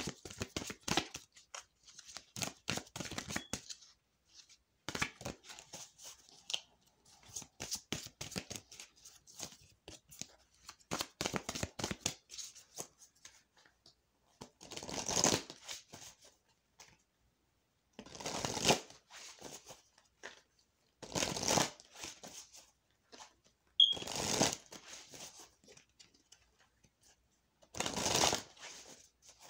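A deck of oracle cards being shuffled by hand: runs of quick card clicks and flutters for the first dozen seconds, then about five separate second-long shuffling rustles a few seconds apart.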